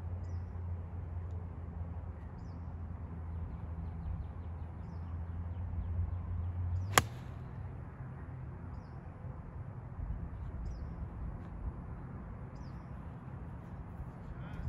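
A golf iron striking the ball once, a single sharp click about halfway through. Faint bird chirps recur throughout, over a low steady hum that eases right after the strike.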